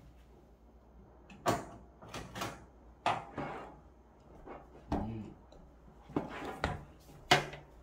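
Kitchen bowls and utensils being handled: about half a dozen separate knocks and clunks.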